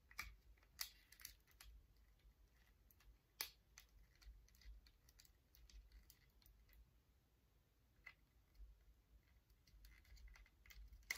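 Faint, scattered clicks and light taps of small plastic parts being handled and fitted together on an action-figure toy motorcycle, with one sharper click about three and a half seconds in.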